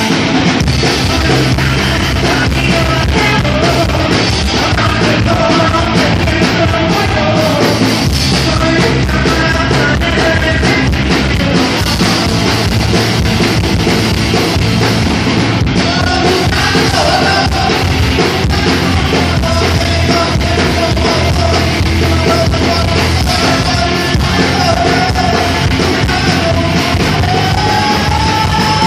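Punk rock band playing loud, with electric guitar, drums and a sung, half-shouted vocal line.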